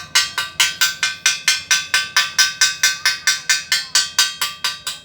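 A hammer striking metal in a fast, steady rhythm of about six blows a second, each blow ringing briefly.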